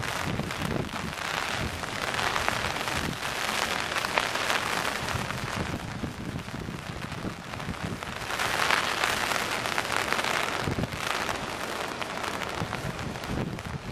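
Heavy rain pouring down and splashing on wet pavement, a dense steady hiss of countless drops. It swells heavier for a couple of seconds about two-thirds of the way through.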